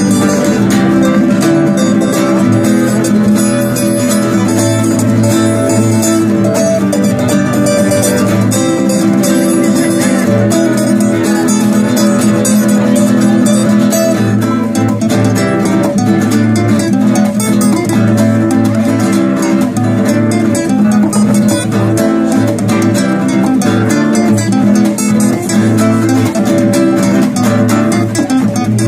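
Two acoustic guitars playing an instrumental duet, a steel-string and a nylon-string classical guitar, heard through small amplifiers. They play a steady stream of fast picked and strummed notes.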